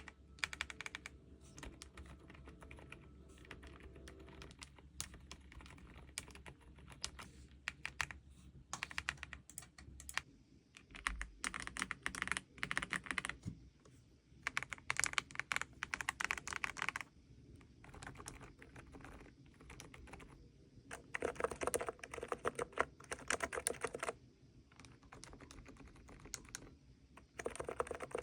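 Typing on a mechanical keyboard fitted with Keychron silent banana switches, a subdued patter of keystrokes. The typing comes in several runs of a second or two with short pauses between them.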